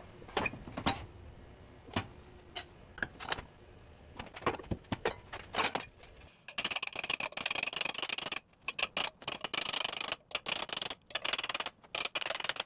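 Scattered metallic knocks and clicks from a sheet-metal brake being worked as aluminium sheet is bent. About six seconds in, these give way to a dense run of scraping strokes with short pauses, from a small aluminium piece being worked by hand in a bench vise.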